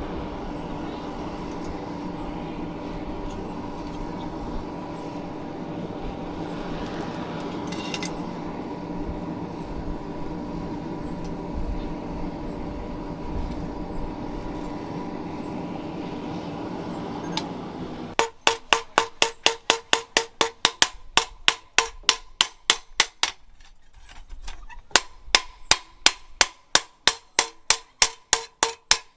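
A steady hum, typical of a forge air blower, while the blade heats in the charcoal fire. About 18 seconds in, it gives way to rapid hammer blows on the hot steel blade, about three a second, each with a short metallic ring and a brief pause partway through.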